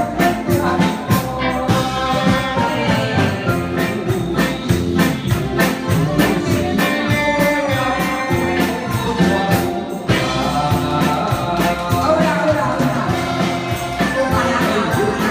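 A live band with keyboard, electric guitar and drum kit playing a song with a steady beat, while a man and women sing into handheld microphones over the PA.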